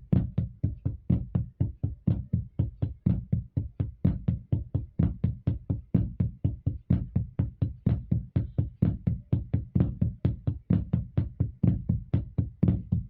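A drum played with sticks in a steady repeating flam–right–left–left sticking, a louder flammed accent followed by softer left-hand ghost notes, at a moderate, even pace.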